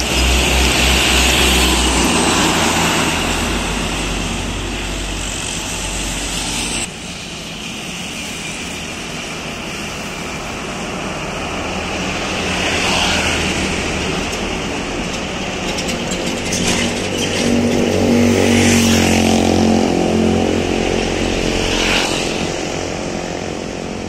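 Heavy diesel trucks passing close on a highway. The engine drone and tyre noise swell and fade as each goes by, with a sudden drop in level about seven seconds in.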